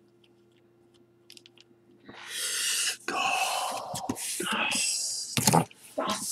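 Cardboard case box handled and shifted on the table: a rustling, scraping noise that starts about two seconds in after a near-silent start and goes on with short breaks.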